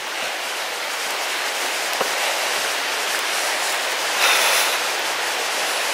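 The East Lyn River rushing over boulders: a steady, even hiss of fast-flowing water, swelling briefly a little past four seconds in.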